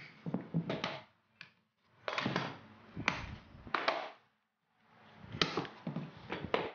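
One-handed quick-release bar clamps being released and lifted off a glued plywood stack: clicks of the release levers and knocks of the clamps and board against the workbench, in three bursts.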